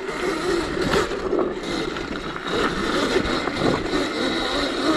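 CZEM Drill One electric dirt bike being ridden hard in its mid power mode on a dirt trail. The electric motor and drivetrain whine rises and falls in pitch with the throttle, over a steady rush of tyre and trail noise.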